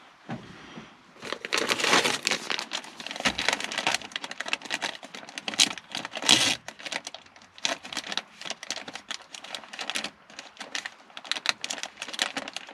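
Close rustling and crinkling with many small irregular clicks and crackles, like gear or clothing being handled near the microphone.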